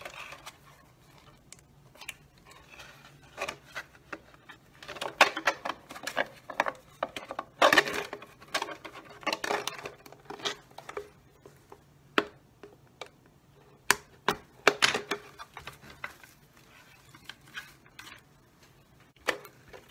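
A plastic soda bottle being handled on a work surface while it is measured and marked: irregular clicks, taps and crinkles of the thin plastic, in a few short clusters.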